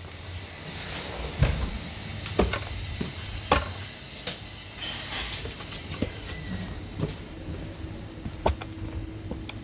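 Footsteps and scattered sharp knocks, irregularly spaced about a second apart, over a steady low outdoor rumble. A faint steady hum joins near the end.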